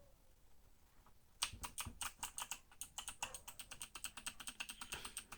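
Typing on a Drop mechanical keyboard: a quick, uneven run of key clicks, several a second, starting about a second and a half in.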